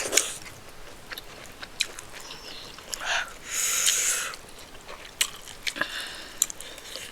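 Close-miked chewing of a person eating soft food, with scattered wet mouth clicks and a short breathy hiss about halfway through.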